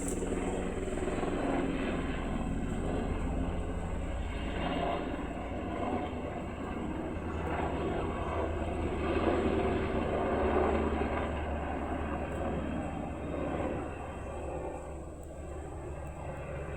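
UH-60 Black Hawk helicopter flying past: the rotor and twin turboshaft engines grow louder toward the middle as it passes, then fade near the end as it moves away.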